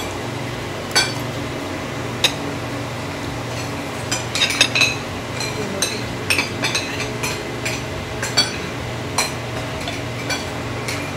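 Forks and spoons clinking now and then against plates, a glass jar and a tabletop grill pan as a meal is eaten, with a steady low hum underneath.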